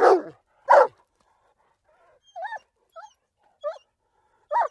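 Dog barking: two sharp, loud barks within the first second. After a short pause come several softer, short whimpering calls that bend up and down in pitch.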